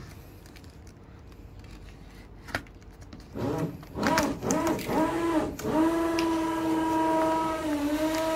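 A person humming: a few short notes that rise and fall, then one long held note for about two seconds, dipping near the end. Before the humming there are quiet scrapes and a sharp click from a cutter slitting packing tape on a cardboard box.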